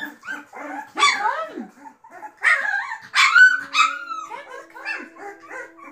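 A litter of young Continental Bulldog puppies squeaking, whining and yelping, many short high cries overlapping. A few louder yelps come about a second in and around the middle.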